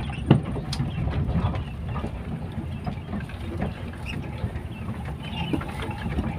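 A lowered Toyota Kijang Kotak running slowly over a rutted dirt track, heard from inside the cabin: a steady low engine and road rumble with repeated knocks and rattles from the body and suspension over the bumps, the loudest knock just after the start.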